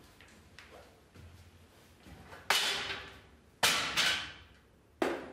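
Aluminium stepladder clanking: three sharp knocks about a second apart in the second half, each with a short metallic ring.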